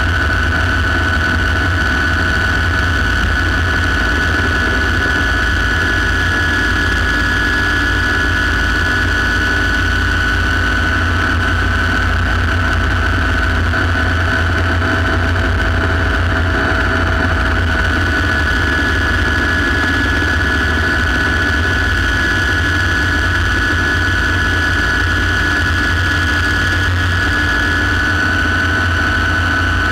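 Light turbine helicopter in flight, heard from inside the cockpit: a steady high turbine whine over a heavy low rumble.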